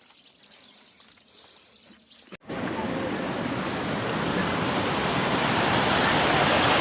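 Faint, quiet background for the first two seconds or so, then, after an abrupt cut, the steady rush of a waterfall, growing gradually louder.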